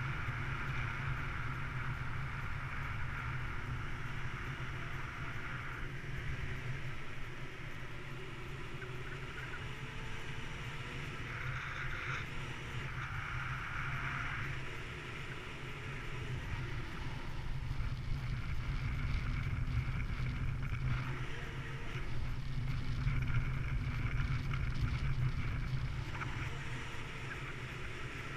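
Wind rushing over the camera microphone of a paraglider in flight: a steady low rumble of airflow that grows a little louder in the second half.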